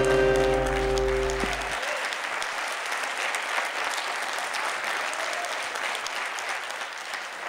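A song's last held chord cuts off about two seconds in, leaving a crowd applauding, the clapping slowly fading.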